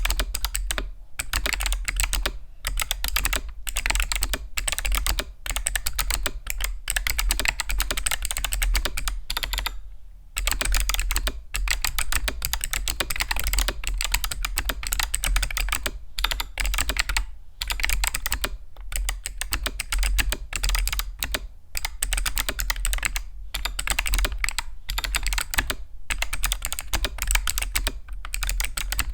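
Fast typing on a Xinmeng X75 mechanical keyboard fitted with Kailh Box Summer clicky switches: a dense run of sharp, high clicks, likened to a cicada, broken by brief pauses, with a longer lull about ten seconds in.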